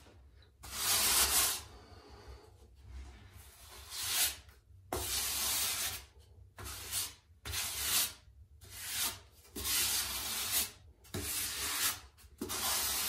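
Grout being spread and pressed into the gaps of a river-rock pebble tile floor: a rough scraping rub in about a dozen short, irregular strokes, each under a second.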